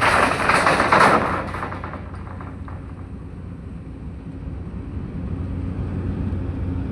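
Ship's engine running with a steady low hum. A loud burst of crackling noise fills the first two seconds, then dies away.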